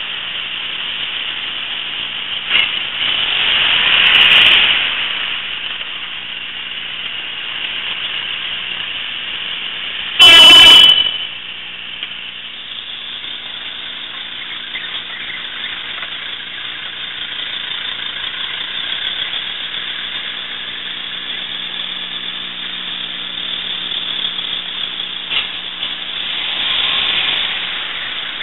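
A car horn honking once, brief and very loud, about ten seconds in. Around it, vehicles passing swell up and fade about four seconds in and again near the end, over the steady hiss and hum of the surveillance recorder's narrow-band audio.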